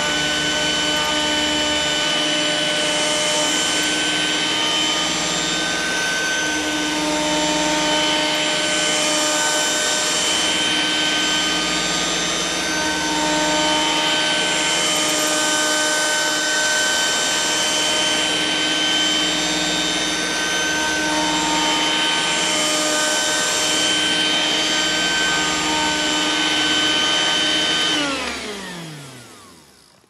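Vacuum cleaner running at full speed: a steady whine over rushing air. About two seconds before the end it is switched off and the motor winds down, its pitch falling away to nothing.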